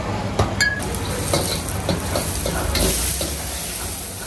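Food frying in a hot wok with a steady sizzle and a low rumble underneath. A metal utensil knocks and scrapes against the wok several times, with one short metallic clang about half a second in.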